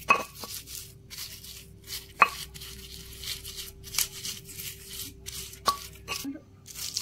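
Stone pestle (ulekan) crushing and grinding whole chilies, shallots and garlic in a stone mortar (cobek): repeated rough scraping strokes, with a few sharp stone-on-stone knocks.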